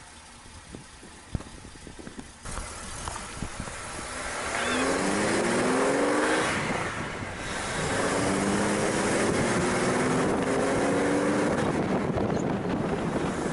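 A Nissan Patrol 4WD pulling away and accelerating along a street, with road and wind noise. After a quiet start with a few clicks, the engine climbs in pitch, drops back briefly about halfway through, then climbs again.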